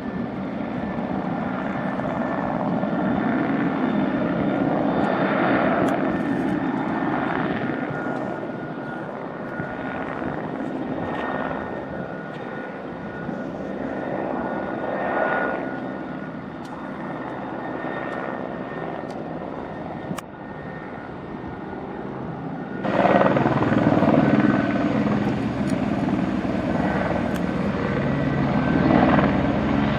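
Aérospatiale AS355F2 TwinStar helicopter with its twin Allison 250 turboshafts, hovering and manoeuvring: a steady high turbine whine over the rotor noise, which swells and fades as it moves. About 23 seconds in, the sound turns suddenly louder and fuller.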